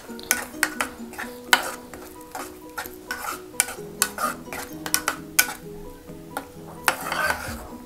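Silicone spatula stirring and scraping thick spinach gravy in a pan as cream is mixed in: an uneven run of short scrapes and taps, a few times a second.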